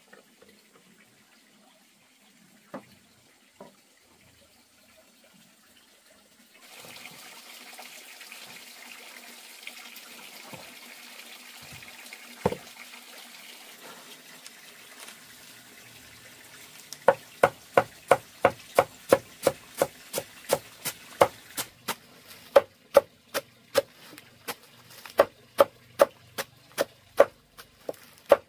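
A machete chopping a bundle of leafy greens on a stone block, in fast, even strokes about two to three a second that begin a little past halfway. Before that there is a steady hiss with a few faint knocks.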